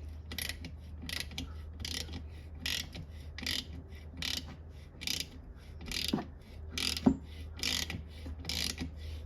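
Hand tap being turned stroke by stroke into a stripped bolt hole in a transmission case, cutting new threads for a thread insert: a regular click from the tap wrench about every three-quarters of a second, with one sharper knock about seven seconds in, over a steady low hum.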